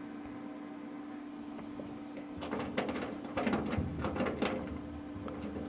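A steady low hum, with a spell of irregular crackling and clattering starting about two and a half seconds in and lasting a couple of seconds, from car-body welding work.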